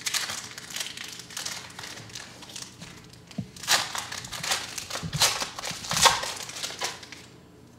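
Plastic wrapper of a trading-card pack being torn open and crinkled by hand, with a few louder crackles in the second half.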